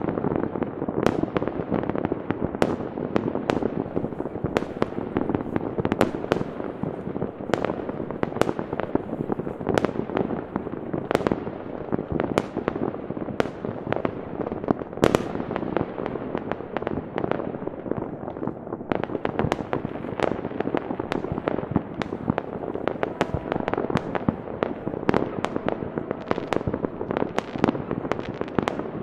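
Many fireworks going off at once across a town: a dense, unbroken wash of bangs and crackles, with sharper single bangs standing out every second or so.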